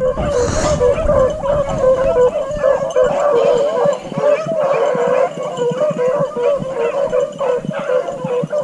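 A pack of beagles baying steadily while running a rabbit on its scent, several voices overlapping in a continuous chorus.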